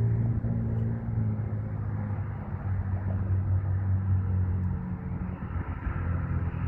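Car engine running steadily with a low rumble.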